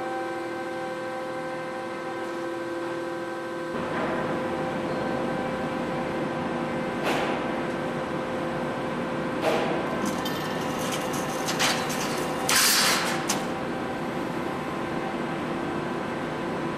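Dreis & Krump hydraulic swing-beam shear running with a steady hum, broken by a few sharp metallic clanks and a brief scraping rattle as a steel sheet is handled on its bed; the loudest rattle comes about thirteen seconds in.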